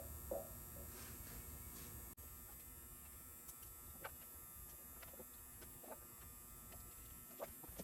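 Quiet room tone with a low steady hum and scattered faint clicks and light taps, and a brief dropout about two seconds in.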